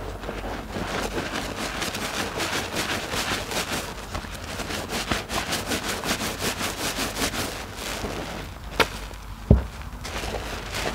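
Rubber-gloved hands squeezing a soap-soaked sponge in a basin of thick foam: wet squishing of lather, coming in a quick rhythm of about five squeezes a second through the middle. A sharp click and then a low thump near the end.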